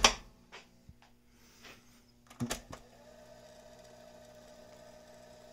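Cassette boombox's music cutting off at once with the clunk of a transport key, a few light clicks, then a key pressed with two sharp clicks about two and a half seconds in, after which the cassette mechanism runs with a faint, steady whir.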